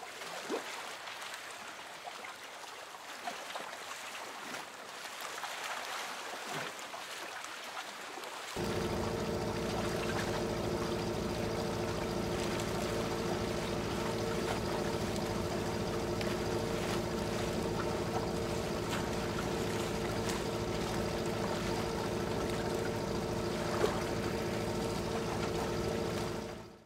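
Small waves washing over a sandy shore. About eight seconds in, this gives way suddenly to a longtail boat's engine running steadily at one speed over the rush of water, which fades out near the end.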